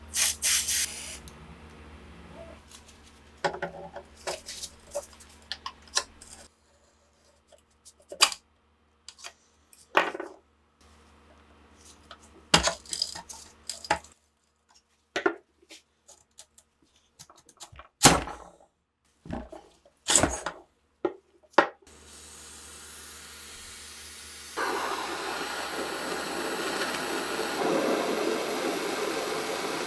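Aerosol lubricant can spraying a short burst onto rusted gun parts, then scattered metal clicks, taps and scrapes as a pointed tool works at the rusted barrel nut. In the last few seconds the aerosol sprays in one long steady hiss, louder from about two seconds in, that cuts off suddenly.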